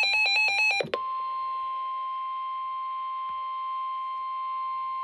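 Emergency alert tones: a brief stretch of rapidly alternating digital data tones, the tail of the SAME header, cuts about a second in to a single steady, high warning alarm tone, the National Weather Service's 1050 Hz tone that announces a warning.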